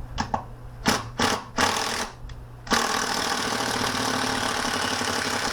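A few handling knocks and rattles, then about two and a half seconds in a power drill starts and runs steadily.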